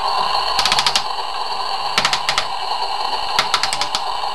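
Toy kitchen's electronic frying sound effect from its small speaker: a steady sizzling hiss with short bursts of rapid crackling clicks about every second and a half.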